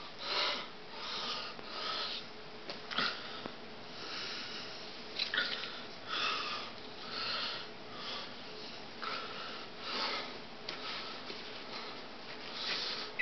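A person breathing audibly close to the microphone, soft breaths about once a second.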